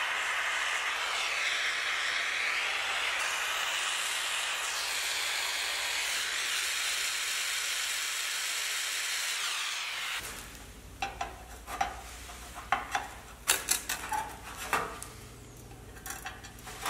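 Gas torch flame hissing steadily while a washer is hard-soldered onto a steel cover, cutting off suddenly about ten seconds in. After that come scattered small metal clicks and taps against a low hum.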